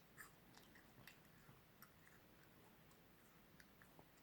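Faint, scattered wet mouth clicks and smacks of a toddler chewing soft fruit, a few a second, over near-silent room tone.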